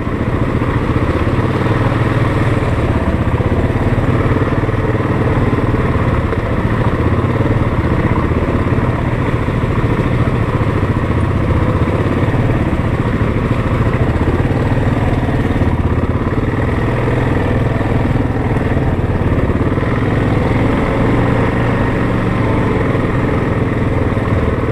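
ATV engine running steadily under way on a dirt trail, a constant low drone with rattle from the machine over the ground.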